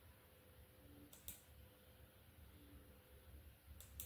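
Near silence broken by faint computer clicks, one about a second in and a pair near the end, as presentation slides are advanced.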